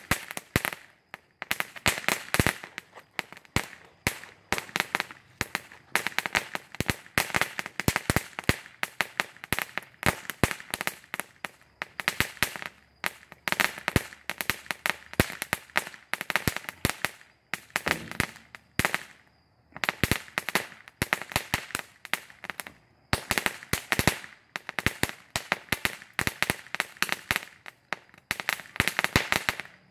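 Cracker Barrel ground firework crackling: rapid volleys of sharp cracks and pops in dense clusters, with a brief lull about two-thirds of the way through.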